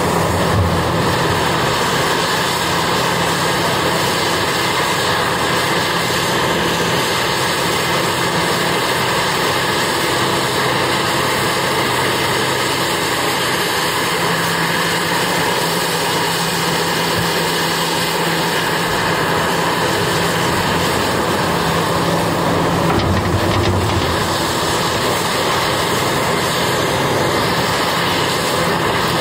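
Diesel engine of a Cat 6015B hydraulic mining excavator running steadily at working speed, a loud, even drone with no pauses.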